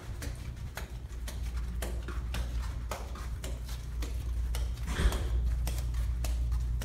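Footsteps walking at a steady pace along a carpeted corridor, about two steps a second, over a low steady rumble, with one louder rustle about five seconds in.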